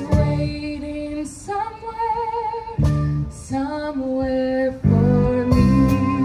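A female vocalist sings long held notes with a wavering vibrato, backed by a live band playing repeated guitar chords and drums.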